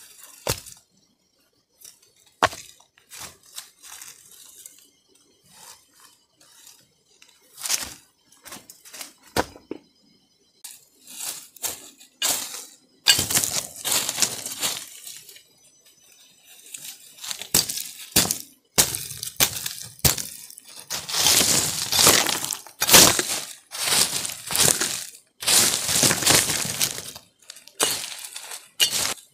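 Stones being moved by hand and knocking together in scattered sharp clinks. Later, a curved blade scrapes and hacks at stony soil and dry leaf litter in longer, rougher bursts.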